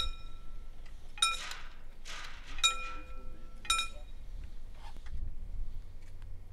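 Mechanical railway semaphore signal returning to stop: four clear metallic clinks about a second apart, each ringing on briefly, as the arm drops and its linkage and counterweight knock into place.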